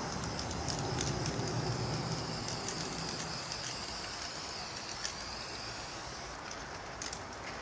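Aerosol spray paint can hissing as paint is sprayed onto a concrete wall, over a low rumble that is strongest in the first few seconds.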